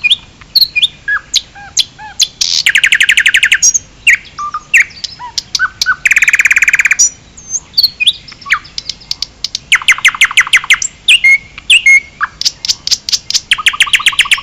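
Bird-song ringtone of a Symphony mobile phone: short chirps and whistled notes, broken four times by rapid, loud trills of quickly repeated notes.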